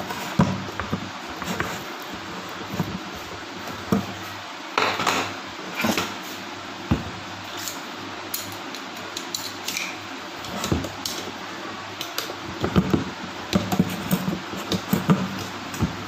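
Screwdriver and small metal bolts and nuts clicking and knocking against a wall fan's motor housing as its four bolts are loosened, in irregular taps with a few louder knocks. A steady low hum runs underneath.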